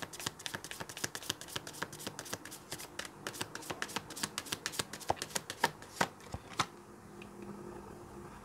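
A tarot deck being shuffled by hand: a rapid, uneven run of soft card flicks and slaps that stops after about six and a half seconds, leaving only a faint steady hum.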